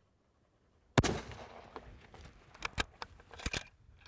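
A single shot from a scoped bolt-action hunting rifle about a second in, a sharp crack that dies away, followed by several metallic clicks as the bolt is worked to eject the case and chamber the next round. The shot is a test shot to check the rifle's zero.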